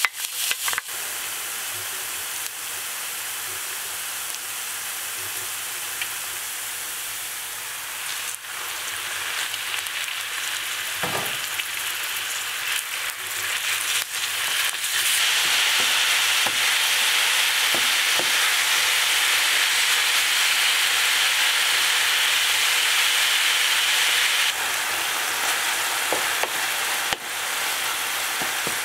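Food sizzling steadily in a hot frying pan as the makhlama cooks, with occasional knocks as it is stirred. The sizzle grows louder about halfway through and drops back shortly before the end.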